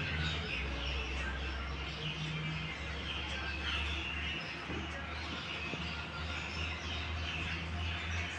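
Small birds chirping over and over in the background, over a steady low hum.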